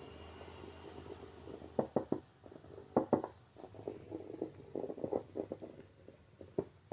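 Microphone handling noise played through a school-bell amplifier's loudspeaker: a series of uneven knocks and bumps as the live microphone is gripped and moved. A low steady amplifier hum sounds at first and fades after about a second and a half.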